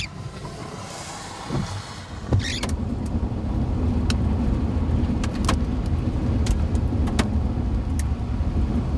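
Car running, with steady engine and road rumble that grows louder about two seconds in. A windshield wiper swish comes near the start and again about two seconds in. Single sharp knocks are scattered through the rest.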